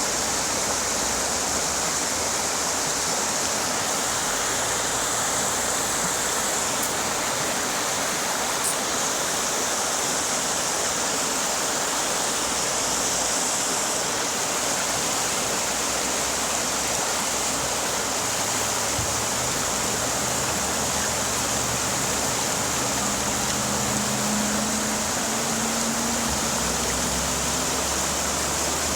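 Steady rushing water, an even hiss with no change in level. Faint low tones come in about twenty seconds in.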